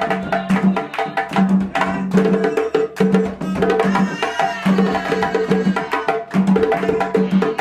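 Djembes and a barrel drum played with bare hands together in a fast, steady dance rhythm, with dense slaps and ringing open tones.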